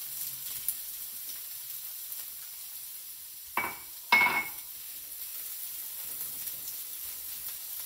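Sliced red peppers sizzling in hot sesame oil in a frying pan, a steady hiss. About three and a half seconds in come two sharp clinks, the second louder and ringing.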